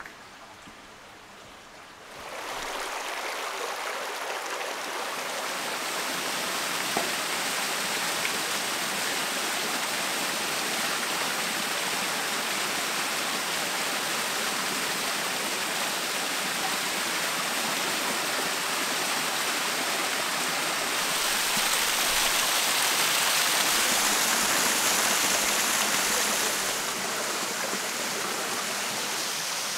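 Rushing river water cascading over rocks, a steady full hiss. It comes in suddenly about two seconds in and grows louder for several seconds later on.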